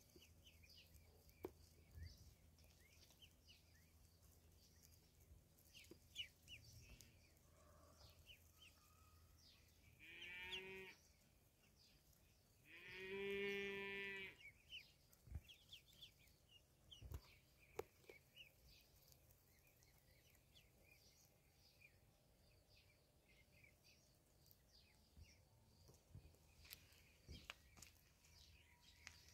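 Ducklings peeping faintly, many short high chirps throughout. Twice, about ten and thirteen seconds in, a larger farm animal gives a longer, louder call of a second or so, the second call the loudest sound.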